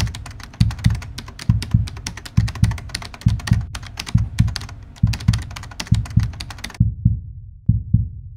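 Percussive edited-in backing track: rapid, dense clicking like typing over a rhythm of low thumps about two a second. The clicking stops abruptly a little before the end, and the thumps fade out.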